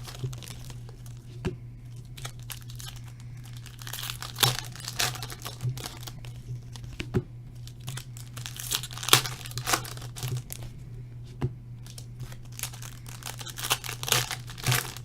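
Foil trading-card pack wrappers being torn open and crinkled by hand, in irregular rustles with a few sharp crackles, over a steady low electrical hum.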